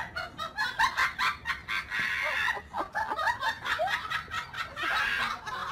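High-pitched cackling in rapid, short rising and falling bursts.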